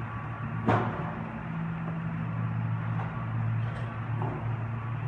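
A steady low mechanical hum with a few even tones in it, and one sharp knock just under a second in, with a couple of faint ticks later.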